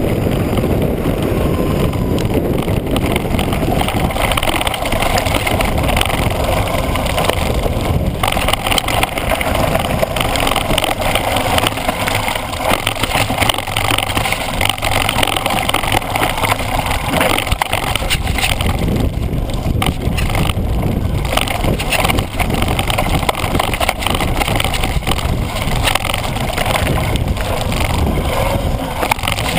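Mountain bike tyres rolling and crunching over loose gravel and stones, with frequent small knocks and rattles from the bike on the rough trail, mixed with wind rushing over the camera microphone at speed.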